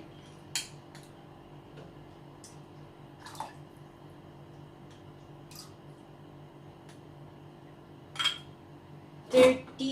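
A few light clinks and taps of kitchenware, a pot and utensils, spaced out over several seconds with the loudest near the end, over a steady low hum.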